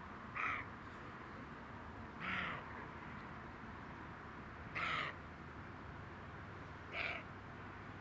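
Roe deer barking: four short, hoarse barks about two seconds apart. These are alarm barks, the herd's warning that it has noticed a danger, here a hidden person.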